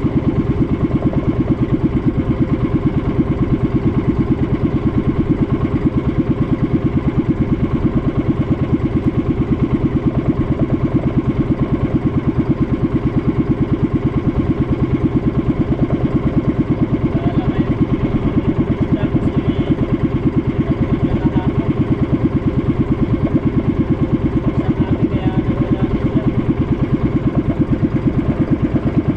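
Small boat engine running steadily at a constant speed, with a rapid, even putter.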